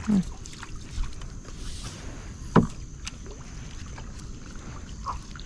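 Wooden canoe moving on calm river water: a low steady wash of water along the hull with scattered small knocks, and one sharp knock about two and a half seconds in.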